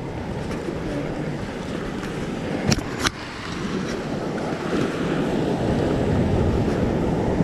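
Ocean waves washing against a rock ledge, with wind buffeting the microphone. Two sharp clicks come close together about three seconds in.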